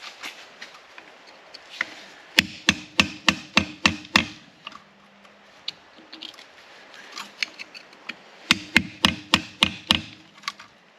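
Hammer blows on the rusted front strut assembly of a 1981 Mazda RX-7 being knocked apart: two quick runs of about half a dozen strikes each, roughly four a second, with the struck metal ringing low between them.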